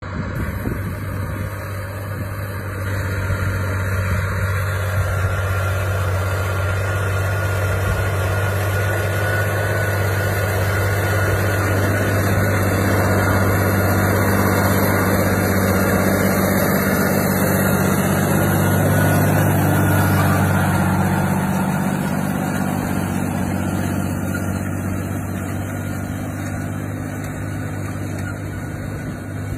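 John Deere 8300 tractor's 7.6-litre six-cylinder diesel running steadily under load while pulling a cultivator, a deep, even drone with a faint steady whine above it. It grows louder as the tractor passes, peaking about two-thirds of the way through, then fades as it pulls away.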